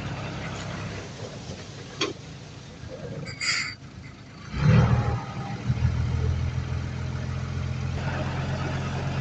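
Heavy diesel engine of earthmoving machinery running as a steady low drone. It fades for a few seconds, with a click and a short hiss, then comes back loud about halfway through and settles into a steady drone.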